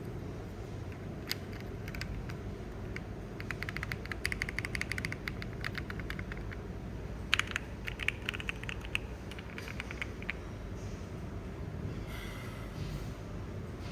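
Keystrokes on a Monsgeek M1W mechanical keyboard: a quick run of typing about three seconds in, then scattered single key presses, the loudest about seven seconds in, over a steady low hum.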